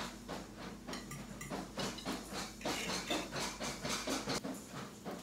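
Food frying on an electric griddle: steady sizzling hiss with many irregular crackles and pops of spattering fat.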